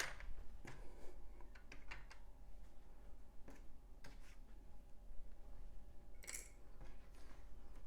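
Scattered light clicks and taps of plastic LEGO pieces being handled and pressed into place, with a sharper click-rustle about six seconds in.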